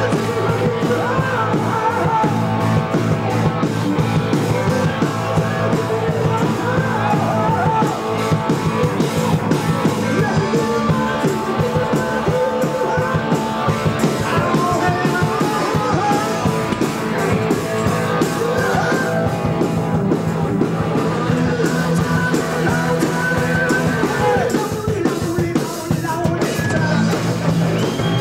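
Live rock band playing: a singer's lead vocal over electric guitar and a drum kit.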